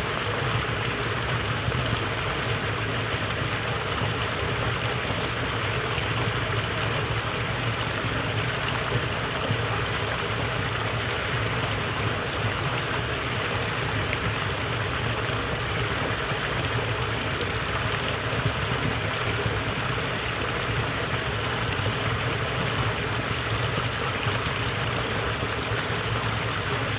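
Small waterfall: water pouring and splashing in a steady, even rush.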